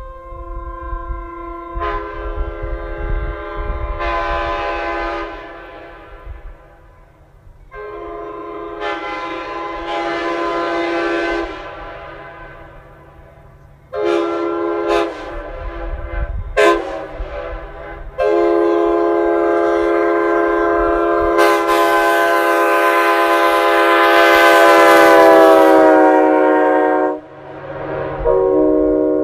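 1980s Nathan Airchime K5H five-chime air horn with a small-bore 5 bell, sounding its chord in a series of blasts: two long blasts, then a few quick toots, then a long blast of about nine seconds whose pitch sags slightly as it cuts off, and another blast starting near the end.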